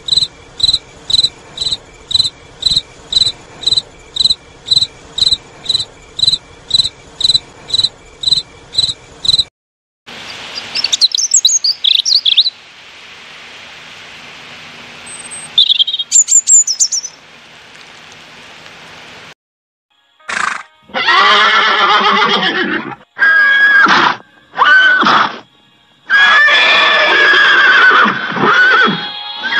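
A cricket chirping steadily, about two chirps a second; then a European robin singing a few short high phrases; then a horse whinnying several times near the end.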